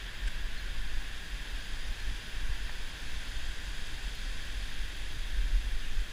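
Steady hiss of flowing river water, with a low rumble that rises and falls under it.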